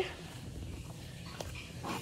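A dog whimpering: a short whine at the start and a fainter one, rising in pitch, near the end.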